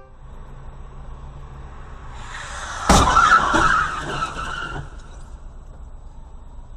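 Car tyres skidding, with a sharp bang about three seconds in as one car strikes another. The screech carries on for a couple of seconds after the bang, then dies away.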